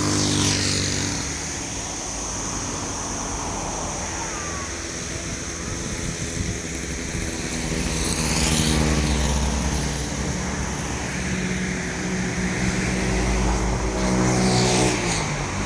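Road traffic: motor vehicles running with a steady engine drone, with vehicles rushing past near the start, about nine seconds in, and near the end.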